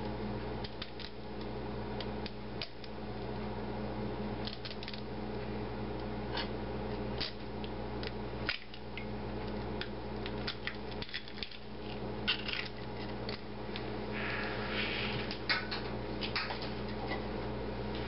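An egg being cracked open over a ceramic mug: scattered small clicks and taps of eggshell and fingers against the mug, over a steady low hum.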